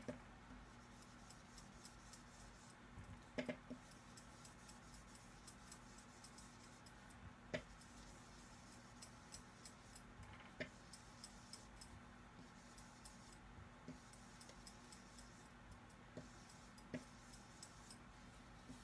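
Quiet, with faint scattered taps and soft clicks as an ink blending brush is dabbed onto cardstock and ink pad; the clearest taps come about 3 and 7 seconds in. A faint low hum runs underneath.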